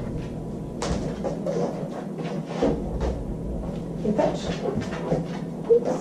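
Light knocks and clicks of a refrigerator door being handled, with one sharp click about a second in.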